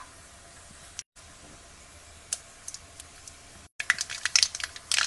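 Mustard seeds spluttering in hot oil for a tempering: at first a faint hiss with a few scattered pops, then, after a brief cut-out of sound, a dense, rapid crackle of popping seeds for the last second or so.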